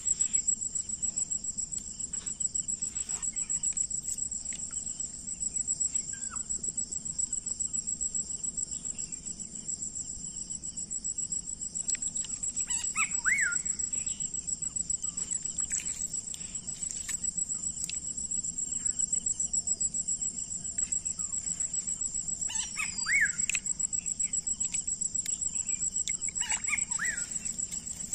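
Insects trilling in a steady, high, rapidly pulsing chorus. A few short bird chirps come through about halfway, and again twice near the end, with scattered light clicks.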